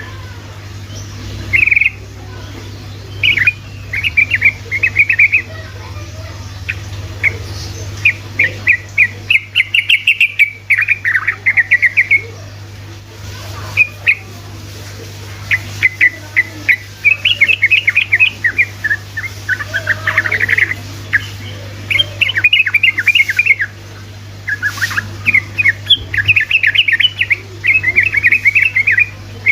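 Yellow-vented bulbul (trucukan) singing fast, bubbly chattering phrases. The runs of quick notes come one after another, each a second or two long with short pauses between. A steady low hum sits underneath.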